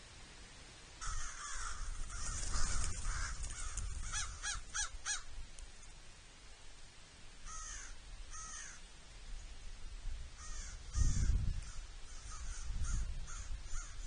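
American crows cawing: repeated harsh caws, some in quick runs of four or five and some in pairs. A brief low rumble comes partway through.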